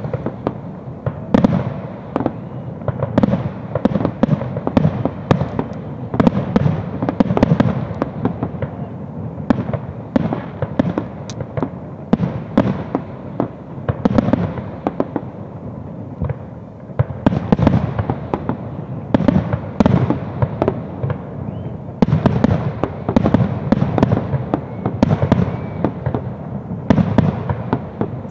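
Aerial fireworks shells bursting in a dense, continuous barrage of bangs, several a second, with a brief lull about sixteen seconds in before the bursts pick up again.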